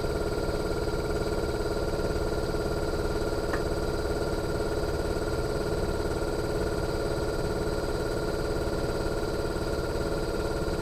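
Fujitsu General AO-C28H air conditioner outdoor unit's inverter compressor running during a defrost cycle: a steady hum with several steady whining tones, and one brief tick about three and a half seconds in.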